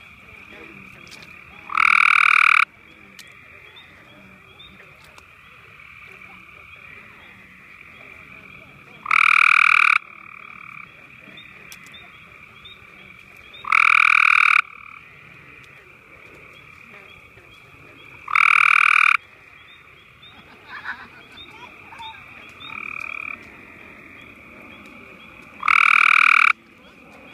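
Male gray tree frog giving its breeding call: five short, loud trills, each a little under a second, spaced several seconds apart. A steady high-pitched background chorus runs behind them.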